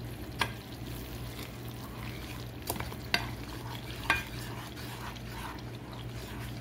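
A spatula stirring a simmering sauce in a small saucepan, with a steady sizzle. The spatula knocks against the pan a few times, the sharpest about four seconds in.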